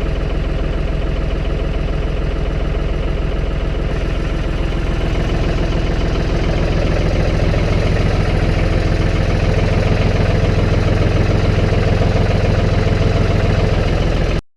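Engine of a snow-plowing vehicle running steadily with an even low pulse; it gets louder about six to seven seconds in and cuts off suddenly near the end.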